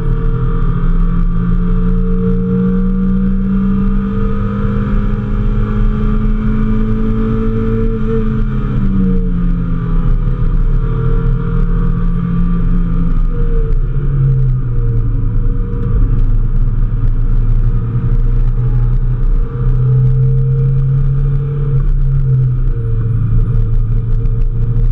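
Mazda Miata's four-cylinder engine pulling hard under load, heard from inside the cabin over wind and road noise. Its pitch climbs slowly, eases down a little about eight seconds in, drops lower about fourteen seconds in, then climbs again.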